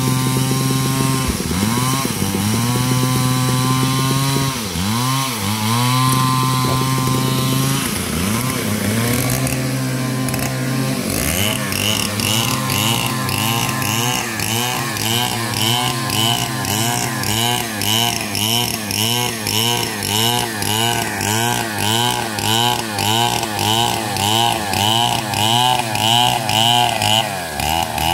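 Stihl two-stroke chainsaw ripping lengthwise through a log to cut boards. The engine note dips and recovers under load at first; from about ten seconds in it rises and falls in a steady rhythm about twice a second.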